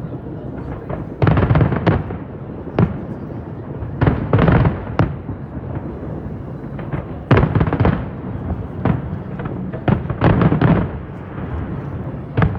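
Aerial fireworks display: shells bursting in sharp bangs and crackling clusters about every three seconds, with single cracks between them, over a continuous rumble of further bursts.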